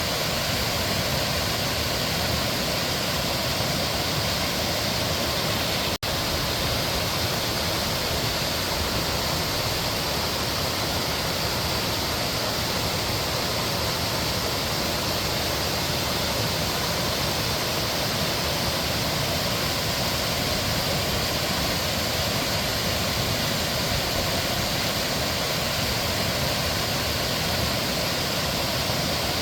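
Mountain stream water flowing in a steady, even rush, with a split-second gap about six seconds in.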